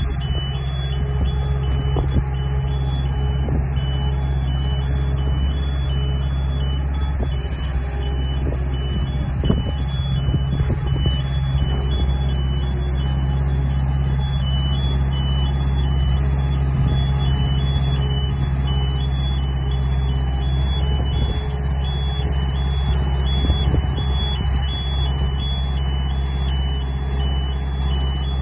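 Skyjack SJ46JRT articulating boom lift's engine running steadily while the boom is operated, with its motion alarm beeping in a regular, high-pitched on-off pattern.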